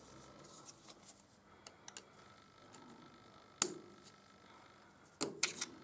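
Small metallic clicks and scrapes of a pointed steel pick working inside a thread chaser's bore, picking out fragments of a broken stud. One sharp click comes a little past halfway, and a quick cluster of clicks comes near the end.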